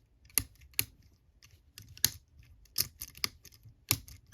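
Four-lever padlock being picked with a lever pick: sharp metallic clicks, about seven in irregular succession, as the pick lifts and drops the levers inside the lock.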